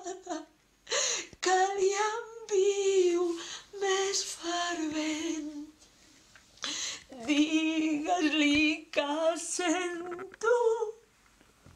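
A woman's voice singing in short phrases of held, wavering notes, with a brief pause about halfway through.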